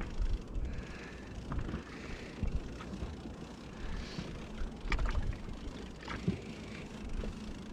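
Wind rumbling on the microphone and sea water lapping against an inflatable boat as it drifts, with a few faint knocks and clicks from the boat.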